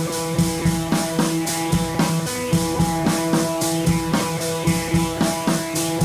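Background music with a steady beat.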